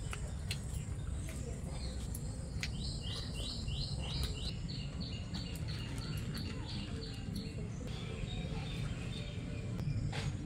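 A bird calling in a rapid series of short, falling chirps, about three a second, for several seconds in the middle, over a steady low rumble. A few sharp clicks and knocks sound now and then.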